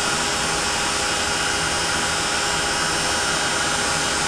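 Ranger craft heat tool running continuously, blowing hot air to melt embossing powder: a steady rushing of air with a faint steady hum under it.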